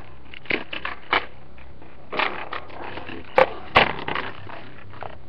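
Hard plastic clicks and knocks as a Mighty Beanz toy bean and its plastic packaging tray are handled: about seven short, separate clicks, the two loudest close together a little past the middle.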